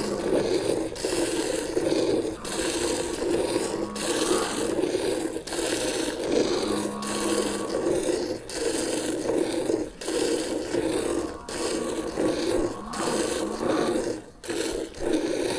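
Buffalo being milked by hand: milk squirting into a pail in a steady rhythm of hissing spurts, a little more than one a second.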